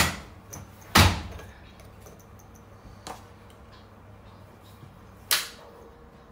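A metal spoon knocking against a glass spice jar and a spice shaker while pepper is spooned in: four sharp clinks, the loudest about a second in, a faint one about three seconds in and another loud one just past five seconds.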